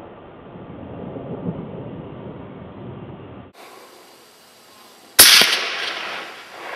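A single 22-250 Remington rifle shot about five seconds in, loud and sharp, its report echoing and fading over the next second. Before it, a low rushing background cuts off suddenly.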